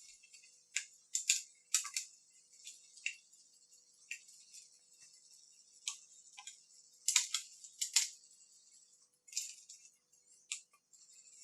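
Irregular sharp clicks and clacks, some in quick pairs, from a Panasonic personal cassette stereo's controls and cassette mechanism being worked by hand during a function check.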